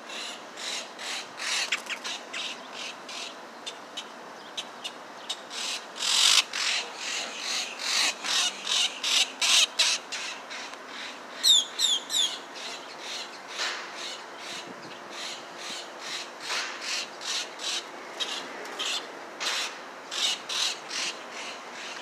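Baby grackle giving harsh, rasping begging calls over and over in quick runs, loudest about six to ten seconds in. A few short whistled notes come around twelve seconds in.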